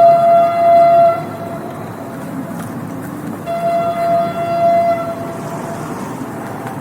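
Train horn sounding twice: one blast that stops about a second in, and a second, longer blast from about three and a half to five and a half seconds in. The steady rumble of the running train continues beneath.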